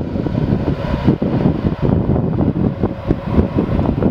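Jet engines of a twin-engine airliner on landing approach, a steady rushing drone with a faint steady whine, heavily buffeted by wind on the microphone.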